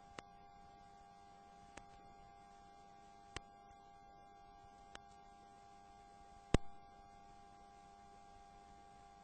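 Faint, steady electrical hum carrying a few fixed tones, broken by five sharp clicks about a second and a half apart; the last and loudest comes about six and a half seconds in.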